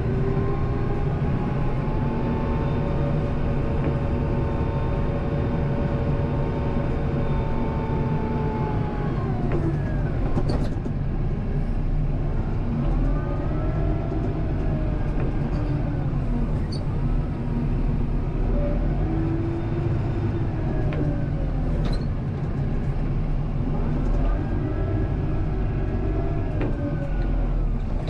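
Kubota M7060 tractor's four-cylinder diesel engine running, heard from inside the cab, a steady low rumble whose pitch falls and rises several times as the tractor slows and speeds up while plowing. A few sharp clicks are heard along the way.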